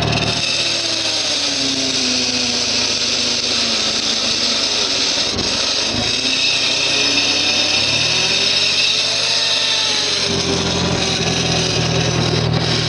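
Gehl 4400 skid steer engine running under load. Its engine note drops about half a second in, then rises again and settles back to a steady run about ten seconds in, over a constant high hiss.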